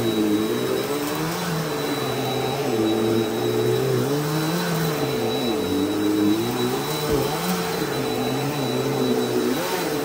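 Bissell PowerForce Helix Turbo Rewind upright vacuum running over carpet, with a steady high whine. Its lower motor note wavers up and down every second or two as it is pushed back and forth.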